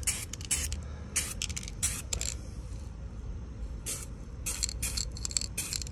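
Aerosol can of anti-fouling spray paint being sprayed onto a hull repair in a series of short hissing bursts.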